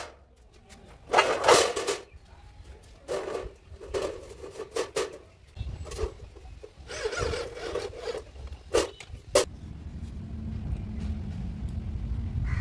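Electric drill driving self-drilling screws through a painted metal sheet into a steel tube frame, in short bursts of about a second each. A steady low rumble follows in the last few seconds.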